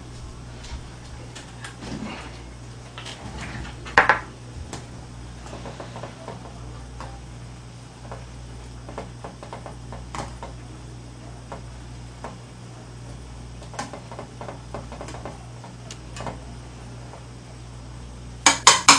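A metal utensil clinking and scraping against a metal ramen pot while noodles are stirred. There is a louder clank about four seconds in and three quick knocks near the end.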